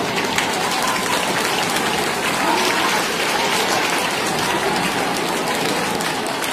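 Audience applauding steadily, a dense patter of many hands clapping, with some crowd chatter underneath.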